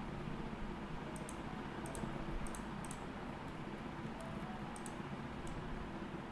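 Computer mouse buttons clicking about eight times at irregular intervals, several as quick double clicks, over a steady background hiss.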